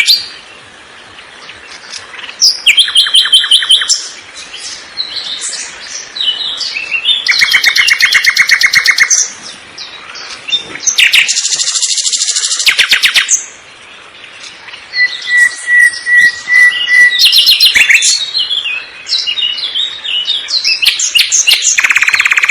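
Songbirds singing: loud, rapid trilled phrases lasting a second or two each, repeated with varied chirps between them, and one thin held whistle about two-thirds of the way through.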